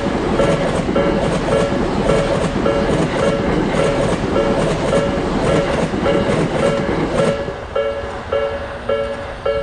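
Japanese railroad crossing bell ringing its repeating ding about twice a second, with a train running past that stops about seven seconds in, leaving the crossing bell ringing on its own.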